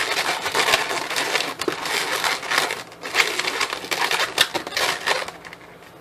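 Inflated latex 260 balloons squeaking and rubbing against each other as they are twisted and locked into pinch twists, a close, crackly run of squeaks that dies down about five seconds in.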